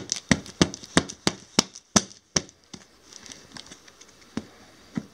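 Scissor points jabbing and scraping at the taped seam of a cardboard box: a quick run of sharp taps, about four a second, for the first two and a half seconds, then a few fainter ticks.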